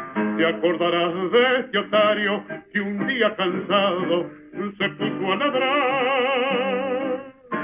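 A song: a solo voice singing long held notes with strong vibrato over an instrumental accompaniment, in phrases broken by short pauses.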